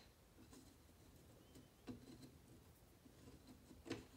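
Near silence with a few faint knocks and taps of small parts being handled on a wooden workbench: one at the start, one about two seconds in and one near the end.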